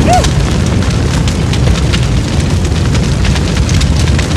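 Car fire just after an explosion: a steady, loud low rumble of flames with scattered crackles and pops.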